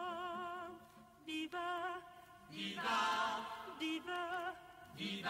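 Song intro: a sung voice with wide vibrato holding long notes in short phrases separated by brief pauses, swelling louder about halfway through.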